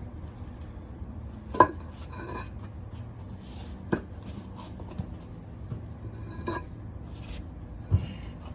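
Hard knocks and clacks of concrete pavers being handled and set, about five sharp strikes a second or so apart, the loudest about a second and a half in, with a short scrape between them.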